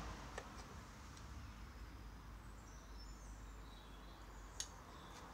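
Quiet outdoor background with faint bird chirps. Two small sharp clicks, one just after the start and one near the end.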